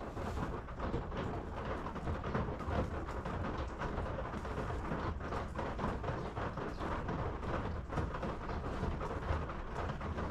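Steady rain on a tin roof: a dense run of fine drop hits over a low rumble.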